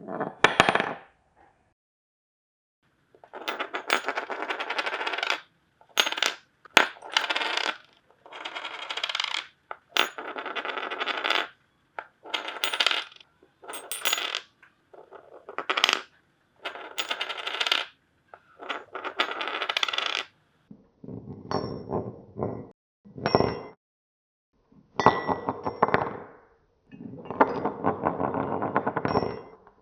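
Metal wedding ring spinning and rattling on a hard surface, heard as a string of about fifteen separate short takes, each one to two seconds long, with silences between them. The later takes carry a brief high ring.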